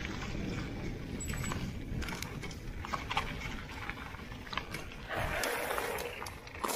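E-mountain bike rolling down a gravel track: a steady low rumble of tyres and wind, with rattling and clicking from stones and the bike's parts. A louder rushing noise comes in about five seconds in as the bike slows.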